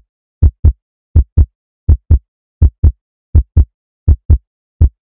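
Heartbeat sound effect: a steady run of deep lub-dub double thumps, about seven pairs, one pair every 0.7 seconds, with silence between.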